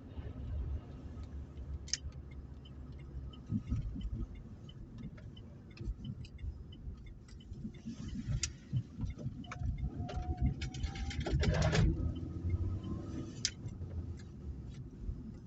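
Opel Meriva driving, heard from inside the car: a steady low rumble with irregular clicks and knocks, growing loudest about 11 to 12 seconds in. The owner traces the car's strange noise to the driver's-side rear wheel.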